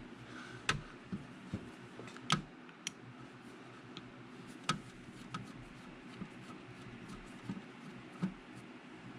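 A handful of light, scattered clicks and taps of a small Walbro chainsaw carburetor and its metal parts being handled and turned over in the hands, over a faint steady hum.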